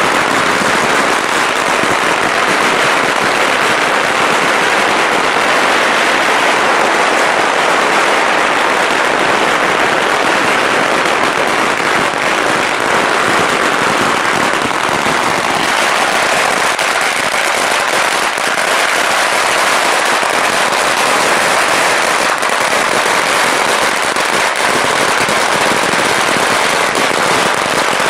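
A long string of Chinese firecrackers going off nonstop in a dense, rapid crackle of small bangs.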